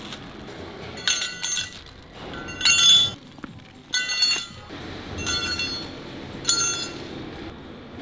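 Plastic-wrapped steel bearing parts being handled, giving five short bursts of metallic clinking mixed with crinkling plastic, about a second and a half apart.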